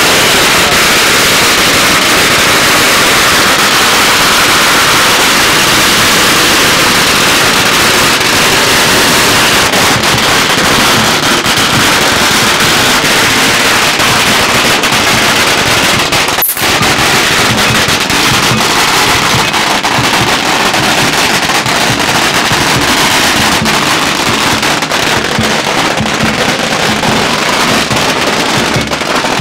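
A long string of firecrackers going off in a dense, continuous rapid crackle of small bangs, broken only by a momentary gap about halfway through.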